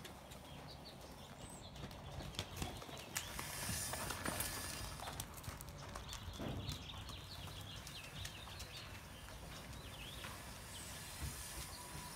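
Hoofbeats of a ridden horse moving over the sand footing of an arena, louder as it passes close by a few seconds in.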